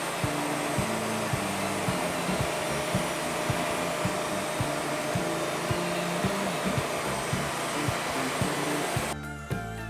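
Bandsaw sawmill cutting a log: a loud, steady rushing machine noise over background music with a steady beat. The machine noise cuts off suddenly near the end, leaving only the music.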